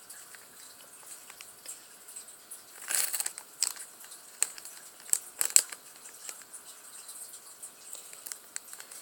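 Packaging and small plastic toy pieces being handled: light crinkling with scattered sharp clicks and taps, in a cluster about three seconds in and another about five seconds in.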